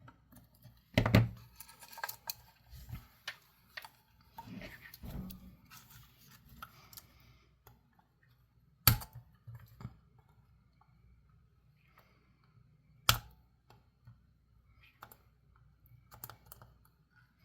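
Hand tools clicking and knocking against the metal battery terminals and plastic battery compartment of a toy as the old terminals are bent and worked loose, with light handling rustle between. Three sharper snaps stand out: about a second in, near the middle and a few seconds later.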